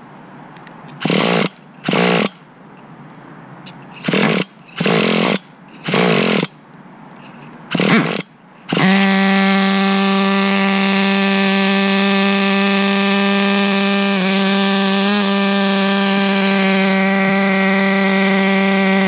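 Traxxas TRX 3.3 nitro two-stroke glow engine being cranked in several short bursts, then catching about nine seconds in and running steadily at an even pitch.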